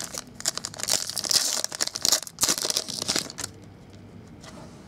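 Foil trading-card pack wrapper being torn open and crinkled by hand, a dense crackling rustle that stops about three and a half seconds in.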